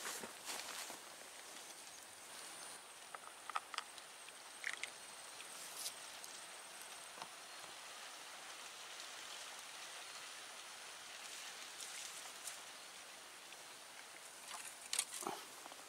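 Faint outdoor ambience: a soft steady hiss with scattered small clicks and taps, a few sharper ones near the end, and a thin high whine through the first half.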